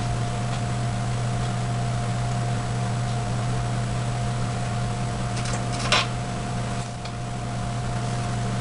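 Steady low electrical hum with a thin constant whine and hiss. A brief scratchy rustle comes about six seconds in.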